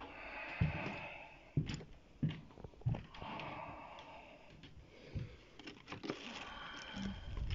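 Handling noise from someone moving about in a small room: four soft thuds in the first three seconds, amid rustling and breathy hissing.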